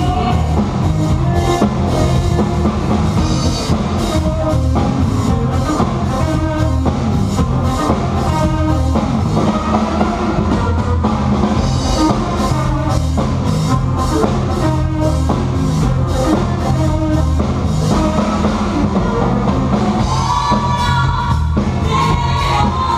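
Rock music played on a drum kit and other band instruments, with a steady driving beat.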